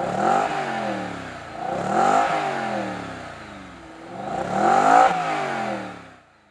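Audi RS5 engine through a Quattro GmbH sport exhaust, revved three times: each rev climbs quickly and then falls away, the last the loudest, before the sound fades out near the end.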